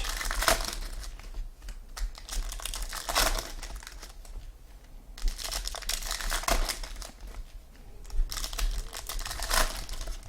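Crinkling and rustling of trading-card pack wrappers and cards being handled, in irregular bursts with some tearing.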